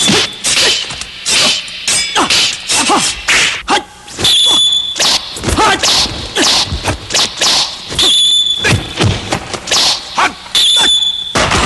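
Swords clashing in rapid, irregular strokes mixed with swishes, as in a film sword fight. About four of the clashes leave a high metallic ringing.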